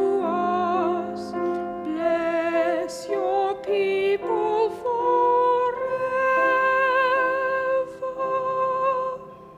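Choir singing the closing phrase of a carol with piano accompaniment, ending on a long held chord that stops shortly before the end.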